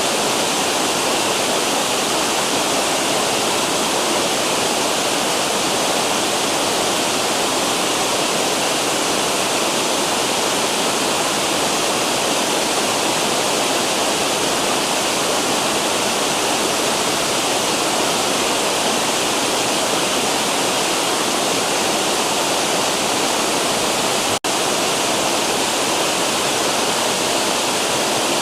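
Cascading river waterfall: a steady, full rush of falling water, with a momentary dropout in the sound near the end.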